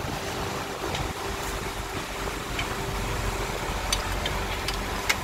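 Steady mechanical hum of the workshop, with a few light metal clicks of a wrench on a clutch pressure plate's bolts as it is fitted to the flywheel.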